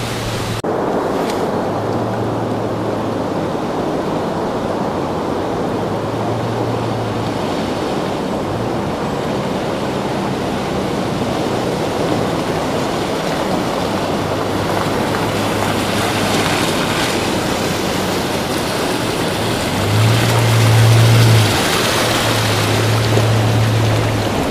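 SsangYong Musso 3.2 with its six-cylinder petrol engine fording a shallow creek: a steady rush of splashing water around the wheels over a low engine hum. The hum swells and is loudest near the end as the vehicle comes up close.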